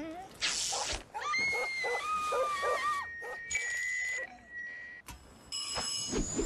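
A dog gives a short bark, then wavering, whining cries. These are followed by a steady high-pitched whistle of hearing-aid feedback, lasting about a second and a half, and more high whistling tones near the end.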